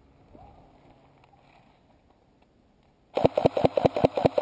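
Airsoft rifle fired in a rapid burst: about three seconds in, a dozen sharp shots, roughly eight a second, for about a second and a half.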